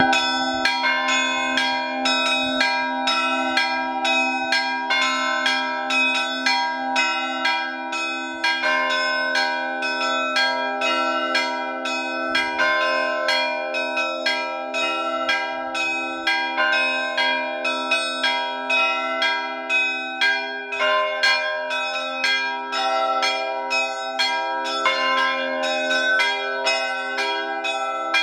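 Russian Orthodox church bells rung by hand: a steady run of quick strikes on the smaller bells, several a second, over the lasting ring of the larger bells.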